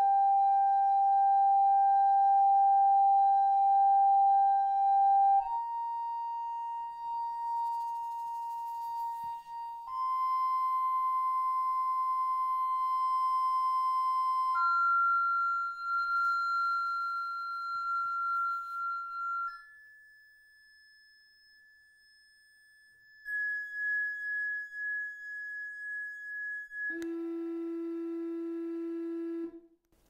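Chladni plates, square metal plates each vibrated by a speaker through a rod, sounding one steady pure tone at a time. The tone steps up in pitch every four or five seconds and near the end drops to a lower, buzzier tone. Each tone is a frequency picked out to set the salt on the plates into a symmetrical pattern along the non-vibrating node lines.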